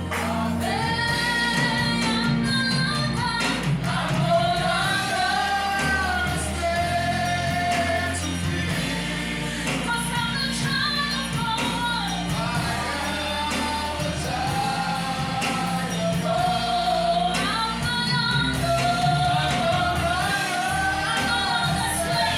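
Gospel worship song: voices singing a held, flowing melody together over a band with a steady bass line.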